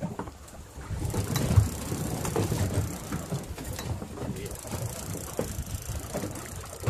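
Fishing reel cranking with a rapid clicking ratchet as line is wound in against a hooked fish.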